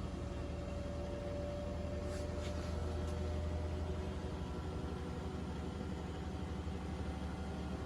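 Beko WML7163O4LP1 ProSmart Inverter washing machine on its final spin: the drum spinning at speed with a steady low hum and a faint steady whine above it.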